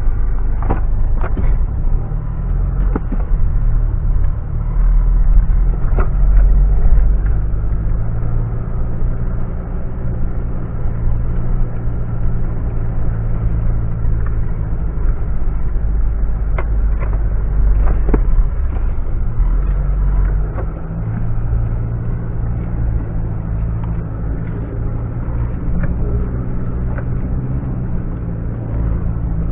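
Mitsubishi Pajero driving off-road: a steady low engine rumble, with a few sharp knocks and rattles now and then.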